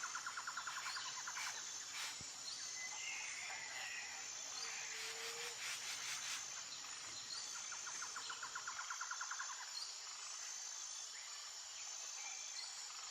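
Faint natural ambience of insects and birds: a steady high insect whine, a rapid pulsing insect trill at the start and again near the end, and a short bird call a few seconds in.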